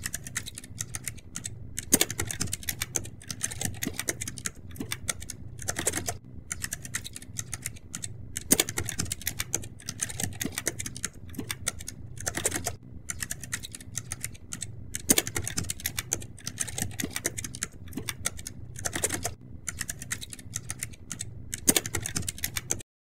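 Fast, continuous typing: a dense run of key clicks with a louder stroke every few seconds, cutting off abruptly near the end.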